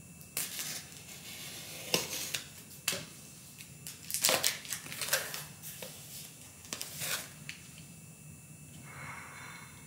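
A utility knife slitting the packing tape on a cardboard mailing box, and the cardboard flaps being worked open: a string of short, sharp scraping and tearing sounds over the first seven seconds or so, loudest about two and four seconds in.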